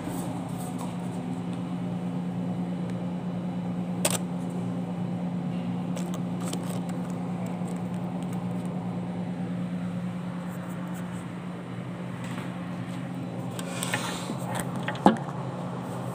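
Steady low machine hum, with a sharp click about four seconds in and a louder knock near the end as the phone is handled.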